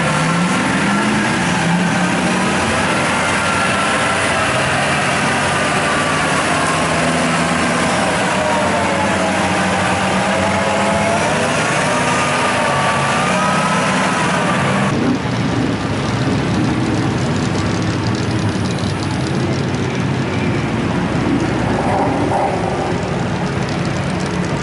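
Duramax diesel engine of a lifted Chevy mud truck running at low speed while the truck creeps through mud, engine pitch rising and falling gently. The sound changes abruptly about fifteen seconds in.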